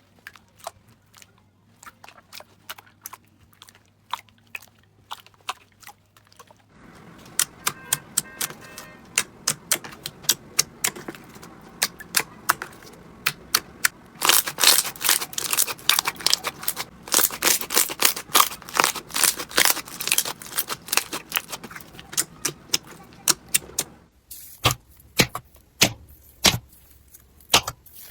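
Slime being squeezed and pressed by hand, giving quick crackling and popping clicks. The clip changes about seven seconds in and again near the end, and the middle stretch is the densest and loudest.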